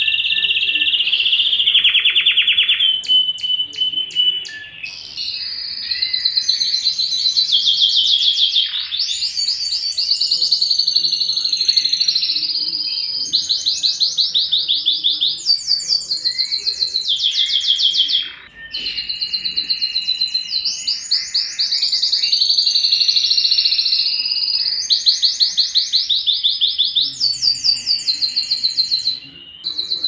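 Domestic canary singing a long, continuous song of rapid trills and rolls, switching to a new phrase every second or two, with one brief pause partway through.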